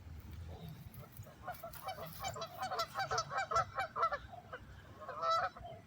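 Geese honking: a fast string of overlapping calls from about a second and a half in, then a louder burst of honks near the end.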